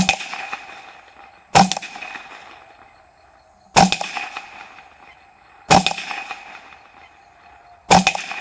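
Ruger 10/22 Takedown .22 LR rifle firing five single shots about two seconds apart, each with a short fading tail.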